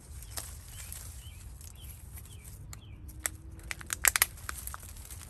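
Faint short bird chirps over a low steady rumble, then a quick cluster of sharp clicks and snaps of something being handled, loudest about four seconds in.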